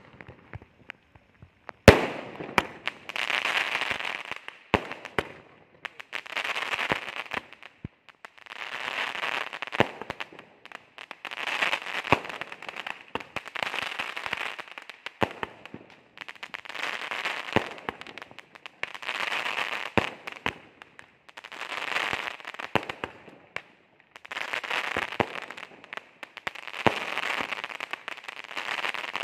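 A 10-shot crackling aerial firework cake firing. A fuse hisses for about two seconds, then a sharp launch crack. Then come about ten bursts of dense crackling, each lasting a second or two, roughly every two and a half seconds, with single pops of the shots leaving the tube between them.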